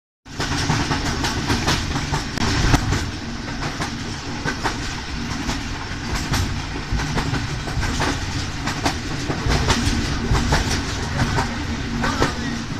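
The Tezgam Express passenger train running at speed, heard from on board: a steady rumble of wheels on the track, with many sharp clicks and clacks as the wheels cross rail joints.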